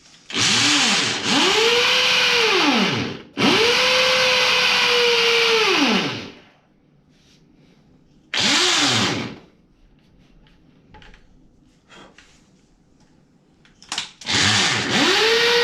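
Ozito hammer drill in hammer mode boring into a concrete floor with a masonry bit, run in repeated bursts: the motor winds up, holds, then winds down each time the trigger is released, with short pauses between bursts.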